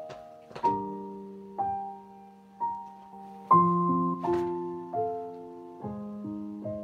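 Slow, calm piano music: single notes and soft chords struck about once a second, each fading away before the next.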